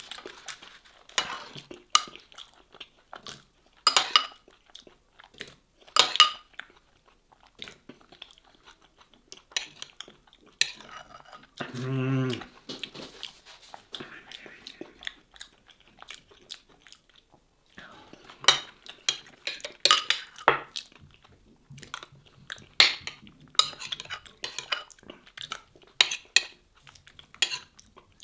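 Metal cutlery clinking and scraping against a terracotta bowl of stew, many sharp clicks spread through, with wet chewing between them. A short hummed 'mmm' comes about halfway through.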